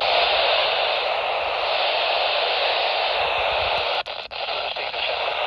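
Radio receiver static: a steady hiss between broadcasts, briefly cutting out twice about four seconds in.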